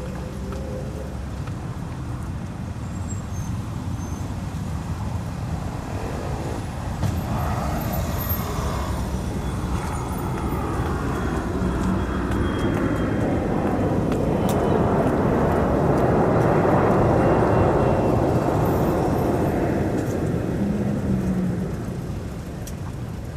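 Outdoor street ambience: a steady low traffic rumble that swells into a louder rush in the second half, as of a vehicle going by, then falls back near the end.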